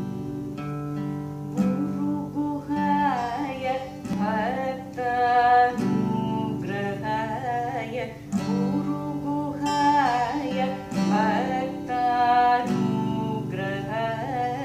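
Carnatic vocal music in raga Sama: a woman singing with gliding ornaments, accompanied by plucked acoustic guitar.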